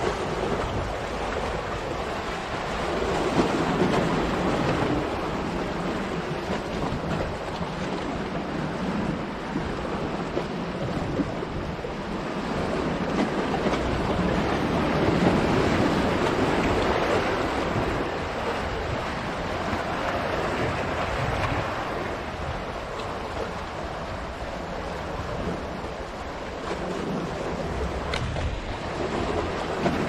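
Sea waves breaking and washing against the boulders of a rocky shore, in a continuous rush that swells and eases every few seconds. The largest surge comes about halfway through.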